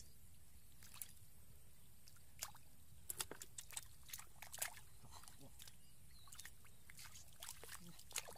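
Hands splashing and squelching in shallow muddy water while groping through the mud for fish by hand: scattered short wet splashes, most of them bunched between about three and five seconds in, with a few more near the end.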